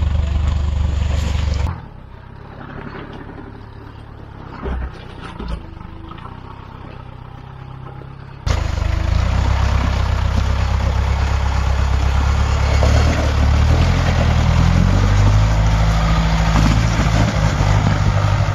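Land Rover Series 2a 109's engine working under load as it crawls up a rutted, muddy track. About two seconds in it drops much quieter for several seconds, with two brief knocks, then comes back loud, its pitch rising and falling as the throttle changes.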